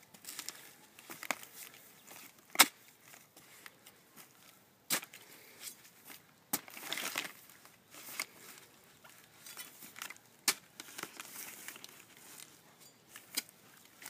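A jimador's coa blade chopping the leaf stubs off an agave piña: sharp, irregular chops every second or two, some with a short crunch of splitting fibrous leaf.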